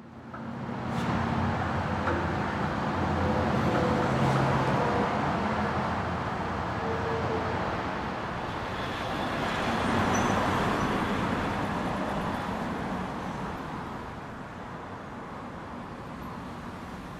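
FPV racing drone in flight: steady rushing motor and propeller noise mixed with wind, swelling twice and easing off near the end.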